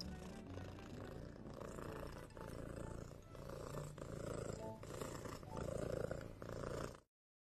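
Domestic cat purring while dozing, the purr swelling and fading with each breath about every second, then cutting off abruptly near the end.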